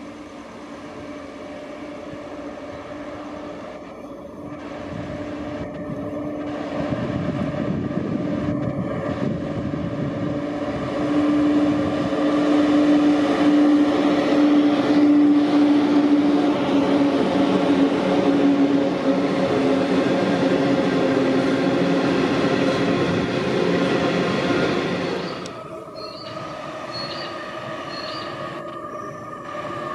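An Aurizon electric locomotive hauling a long coal train passes close by, a steady hum with rolling wagon noise that grows louder as the train goes by. About 25 seconds in, the sound switches abruptly to a quieter, steady running sound from a Pacific National diesel locomotive approaching at the head of a container freight train.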